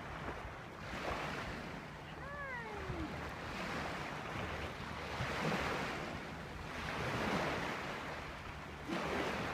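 Beach surf washing in, swelling and fading every couple of seconds, with a single falling call from a bird about two seconds in.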